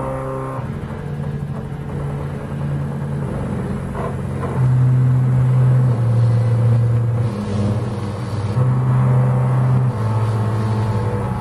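Stepper motors of a CNC hot-wire foam cutter driving its lead screws while the wire cuts through polystyrene foam: a loud, low hum whose pitch jumps between a few steady notes every second or so as the axes change speed.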